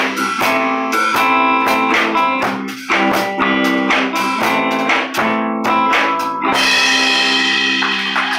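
Live band playing an instrumental passage: an electric guitar strums chords in a steady rhythm with drums, then about six and a half seconds in the strumming stops and a final chord is left ringing out.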